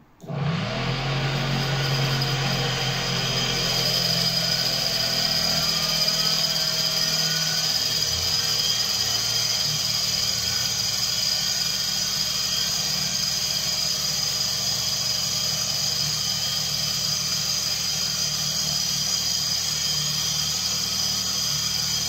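A small battery-powered DC motor starting up and spinning a rewound washing-machine motor through a shaft coupling. It spins up with a rising whine over the first few seconds, then runs at a steady speed with a steady whine and hum.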